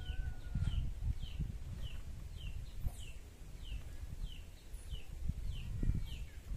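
A small bird repeating a short, falling chirp about twice a second, over a low rumbling background noise.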